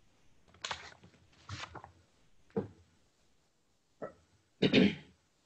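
A woman's short wordless vocal sounds: a few brief breaths or murmurs with quiet between, then a louder voiced sound near the end.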